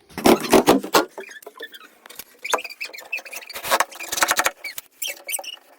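An irregular run of sharp clicks and knocks, like hard objects being handled, with a dense cluster near the start and more around the middle.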